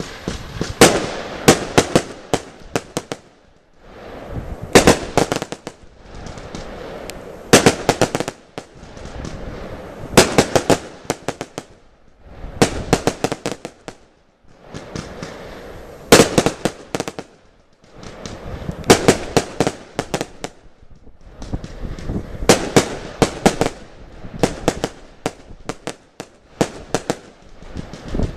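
Lesli Thunderblock 100 firework battery firing: quick clusters of sharp cracks and bangs come every two to three seconds, with a rushing hiss between the volleys.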